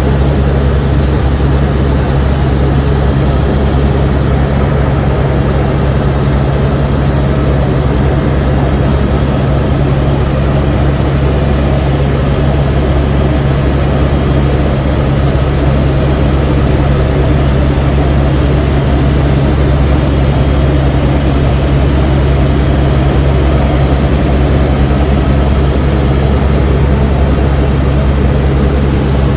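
Helicopter in flight, heard from inside the cabin: a loud, steady low hum of engine and rotor that does not change.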